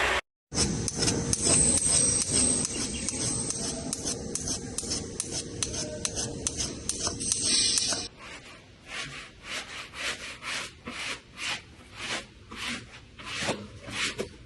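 Rhythmic rubbing strokes, a fast dense scraping for the first half, then separate strokes at about two or three a second.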